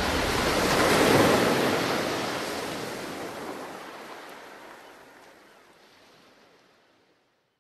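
Sea surf sound effect: waves rushing, swelling about a second in, then fading out steadily to silence.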